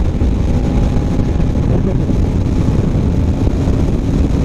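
Kawasaki Ninja 250R's parallel-twin engine running at a steady cruise, under heavy wind noise on the microphone.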